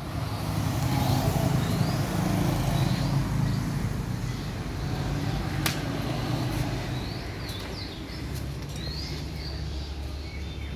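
7.5 kVA Kirloskar generator engine running steadily with a low rumble, a single sharp click about halfway through. Birds chirp in short rising notes now and then.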